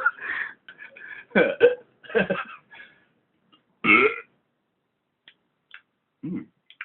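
A man's short belches, a string of separate bursts with the loudest about four seconds in.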